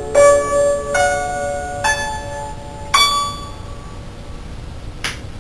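Guzheng plucked with finger picks: four notes about a second apart, the last left to ring and die away as the piece ends. A brief soft rustle comes near the end.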